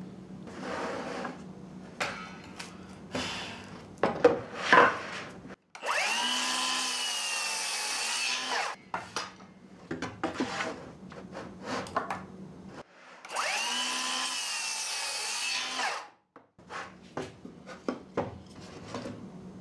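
A power tool running under load in wood in two runs of about three seconds each, a steady whine over loud cutting noise. Sharp wooden knocks and clatter come between and around the runs.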